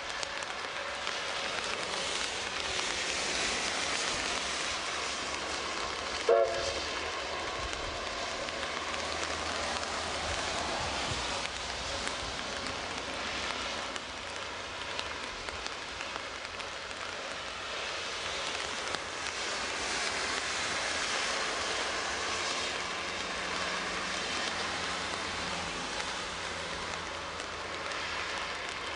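Steady hiss of rain, with a distant steam locomotive whistle sounding once, briefly, about six seconds in, as the steam train approaches the station.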